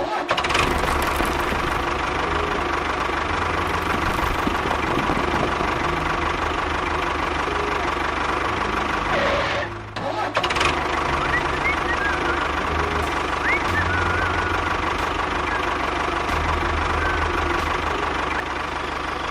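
Small engine of a homemade mini tractor running steadily with a knocking beat, cutting out briefly about halfway through and then running on.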